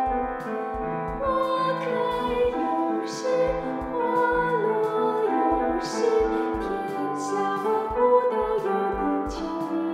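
Hymn sung by a solo voice with piano accompaniment: slow, sustained phrases over held piano chords.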